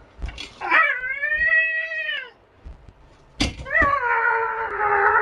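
Two long, high, wailing calls, cat-like yowls. The first rises and falls over about a second and a half; the second starts just after a sharp click and is held steady.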